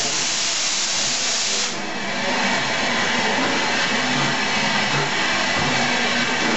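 USATC S160 2-8-0 steam locomotive moving slowly with its cylinder drain cocks open, giving a loud, steady hiss of escaping steam.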